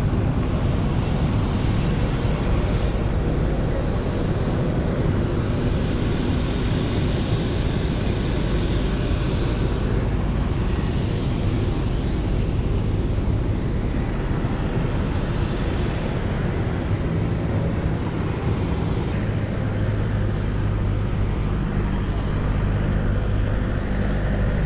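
Cabin noise aboard an Embraer E190 airliner: a steady, loud engine and airflow rumble. Low steady hum tones join in about two-thirds of the way through.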